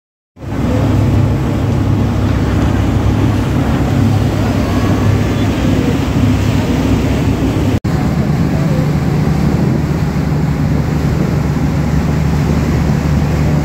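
Steady low drone of a tour dhow's engine under way, mixed with wind and rushing water from the wake. The sound drops out for an instant about eight seconds in, then the drone carries on.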